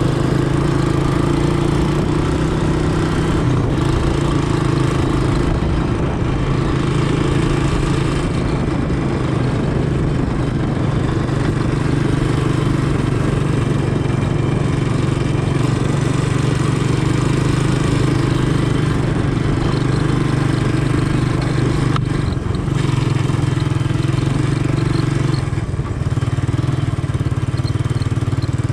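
Honda ATC200M three-wheeler's single-cylinder four-stroke engine running steadily while under way, its pitch shifting a little now and then with the throttle.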